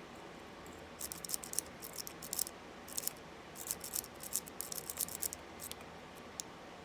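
Metal lock-picking tools clicking and rattling against an Abus 64TI 30 mm padlock in short irregular clusters of sharp clicks, mostly between about one and five and a half seconds in.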